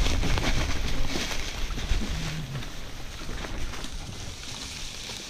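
Mountain bike riding on a dirt trail strewn with leaf litter: wind rushing over the camera microphone, tyre noise and knocks from the bike. It fades steadily as the bike slows almost to a stop.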